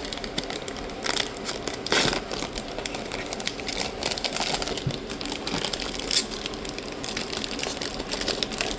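Mystery-box packaging being handled and opened by hand: steady crinkling and scraping with a few sharper clicks and snaps, the loudest about two seconds in and another about six seconds in.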